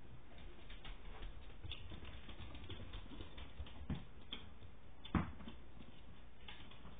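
Dogs' claws clicking and pattering irregularly on a hardwood floor as a puppy and a larger dog move about, with two louder knocks about four and five seconds in.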